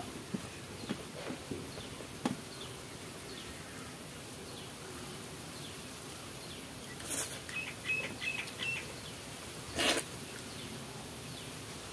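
Birds chirping in the background, with scattered short chirps and a quick run of high repeated notes about eight seconds in. Two brief sharp noises stand out, one about seven seconds in and one about ten seconds in.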